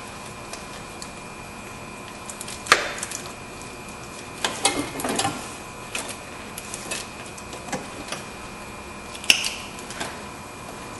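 Wrench and hands clicking and knocking against metal at a Honda Accord's drive belt tensioner as it is levered and the drive belt worked onto the pulleys. One sharp knock comes a few seconds in, a cluster of clatters just before the middle, and another sharp knock near the end.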